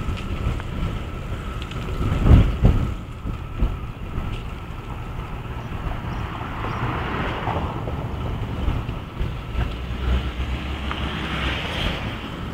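Wind buffeting the microphone of a camera carried on a moving bicycle, a steady low rumble, with two loud thumps about two seconds in.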